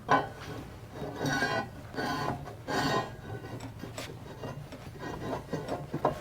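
Steel tube sliding and scraping metal on metal through a close-fitting hole. It opens with a sharp knock, then three longer scraping pushes, then lighter scrapes and taps.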